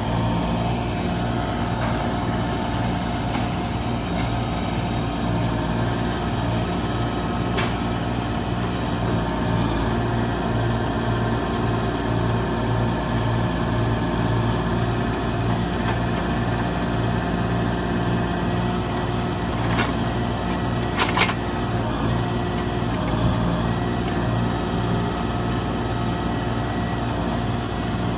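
Heavy machine's diesel engine running steadily while logs are loaded, with a few sharp knocks: one about eight seconds in and a couple around twenty seconds in.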